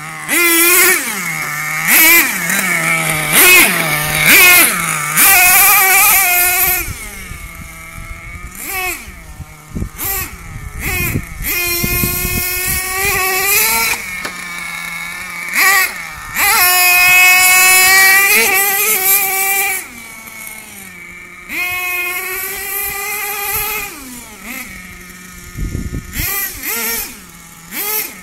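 Axial .32 nitro two-stroke engine in an RC monster truck revving hard in repeated bursts, its pitch climbing and falling back, dropping to a lower idle between runs.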